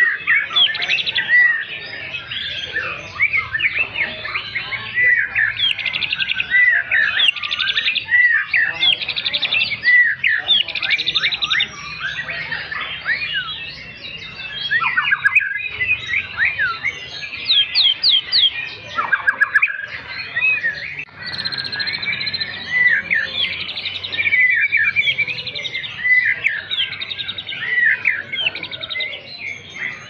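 White-rumped shama (murai batu) singing almost without pause: a long, varied run of clear swooping whistles mixed with rapid trills.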